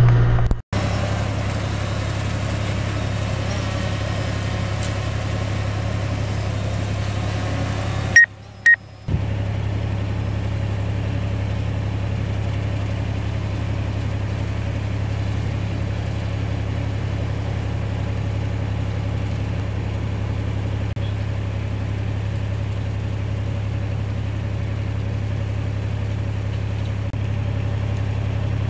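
Branson 7845C tractor's diesel engine running at a steady, even drone while bush hogging. The sound drops out briefly twice, just after the start and about eight seconds in.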